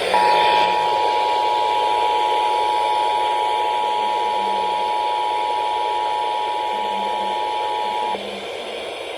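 Emergency Alert System attention signal: the two-tone alarm (853 Hz and 960 Hz sounded together) held steadily for about eight seconds over radio hiss, then cutting off suddenly. It marks the start of an incoming emergency alert broadcast.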